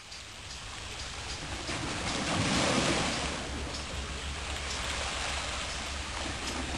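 Small waves washing onto a rocky shore, with a steady low rumble beneath. The sound grows louder over the first two or three seconds and then holds steady.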